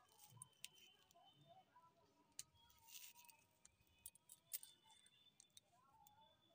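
Near silence: faint outdoor ambience with scattered faint clicks.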